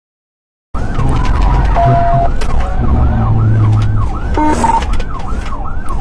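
Police car siren on fast yelp, sweeping up and down about three times a second over the pursuing car's engine and road rumble; it cuts in under a second in, after a moment of dead silence.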